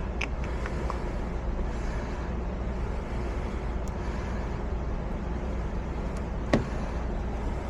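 Steady low mechanical hum of running machinery, with a few faint clicks and a sharper tick late on.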